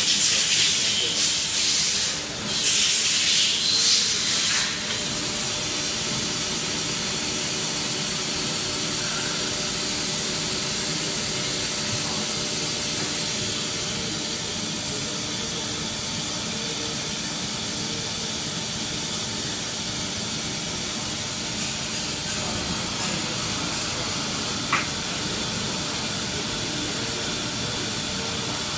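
Hurco VM1 CNC vertical machining centre running: two loud bursts of hissing in the first few seconds, then a steady mechanical hum made of several constant tones with a hiss over it. A single sharp click comes late on.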